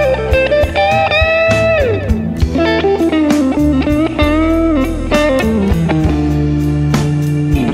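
Slow blues-rock instrumental: an electric guitar solo with bent, sliding notes over bass and drums.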